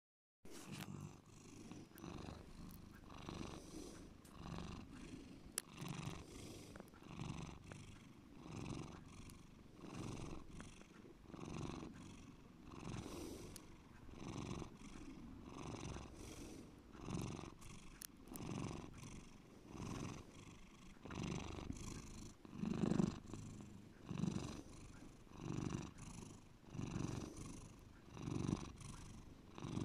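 Domestic long-haired cat purring deeply, the low rumble swelling and fading about once a second with its breathing.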